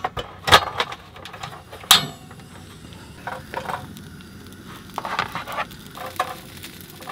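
Portable butane camping stove being lit: two sharp clicks of the ignition knob, the second catching, then the steady hiss of the gas burner flame. A few soft crackles come through as dried filefish is toasted over the flame.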